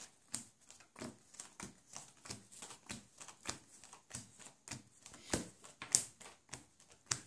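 Playing cards dealt one at a time face up onto a table into three piles, each card landing with a light tick, about three a second, a few landing louder near the end.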